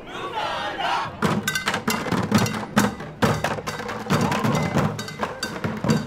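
A street percussion group beating plastic buckets and water-cooler jugs with drumsticks: a fast, even rhythm of sharp, knocking hits that starts about a second in. Voices shout over the first second.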